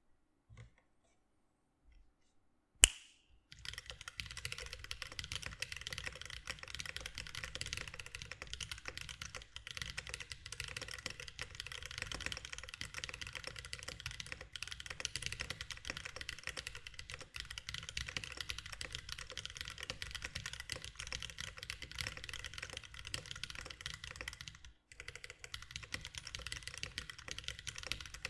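Typing on a Mechmini 2 40% ortholinear mechanical keyboard with lubed Holy Panda tactile switches and GMK keycaps. One sharp knock comes about three seconds in, then a continuous stream of keystrokes follows, with a brief pause near the end.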